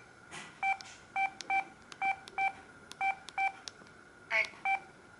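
Samsung SGH-E900 mobile phone playing one of its stock ringtones: a string of short electronic beeps in an uneven rhythm, some coming in quick pairs.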